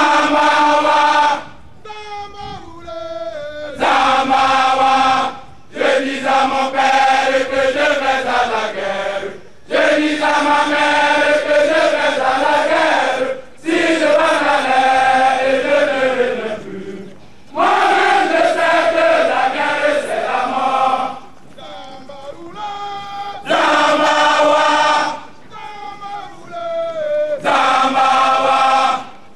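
A body of trainee gendarmes singing a military chant in unison, many voices in long loud phrases. Between the phrases come short, quieter stretches where a single voice leads, in a call-and-response pattern.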